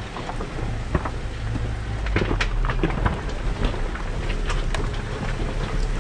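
Off-road vehicle crawling over a loose rocky trail: a steady low engine and drivetrain rumble with frequent sharp knocks and rattles from rocks under the tyres and the body and suspension jolting.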